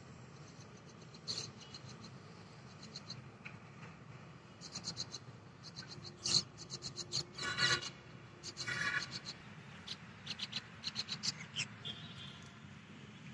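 Birds chattering in bursts of short, harsh, rapid chirps, with a few fuller calls in the middle, over a steady low background rumble.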